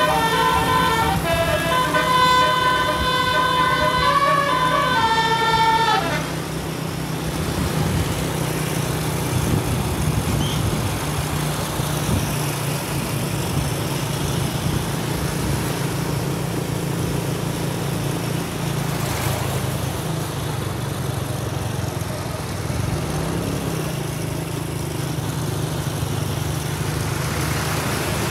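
A bus's telolet horn, a set of multi-tone air-horn trumpets, plays a stepping melody of several notes sounded together for about six seconds, then stops suddenly. A steady low engine and road rumble follows.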